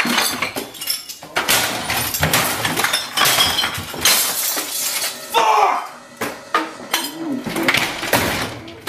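Repeated crashes, bangs and clatters as a man smashes up a room, knocking over and throwing a desk chair and other objects, with glass and bottles clinking. A man yells in between the crashes.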